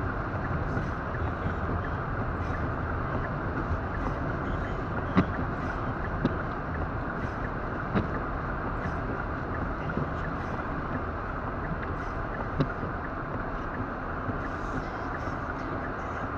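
Steady road, engine and wind noise inside a car driving through a snowstorm, with a few sharp ticks scattered through.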